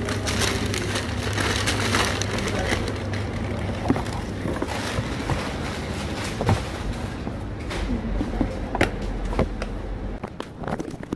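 Supermarket checkout noise: a low steady hum under background chatter, with scattered sharp knocks and clicks from the checkout and trolley. The low hum drops away near the end.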